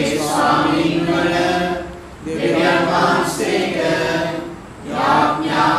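Church congregation singing together in phrases of about two seconds, with brief pauses between them.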